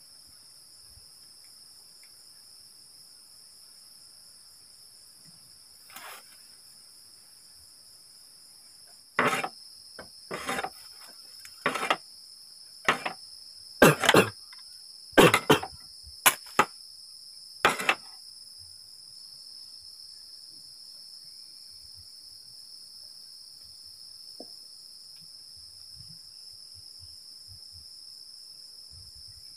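Crickets and other night insects chirring steadily and high-pitched. From about nine seconds in, a run of about nine loud, short, sharp noises of unclear source comes over roughly nine seconds, then stops.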